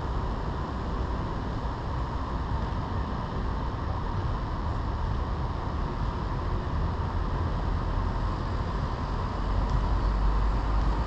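Steady low rumbling noise, a little louder about ten seconds in.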